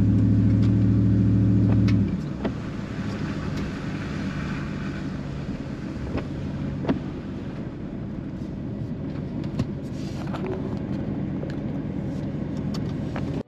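A vehicle driving on a gravel road, heard from inside the cab. A loud steady engine drone for about the first two seconds, then quieter road and tyre rumble with scattered sharp ticks.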